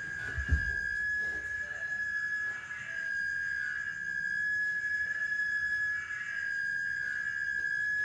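A steady high-pitched electronic whine holding one pitch, which the group puts down to interference from many phones close together. A low thump about half a second in.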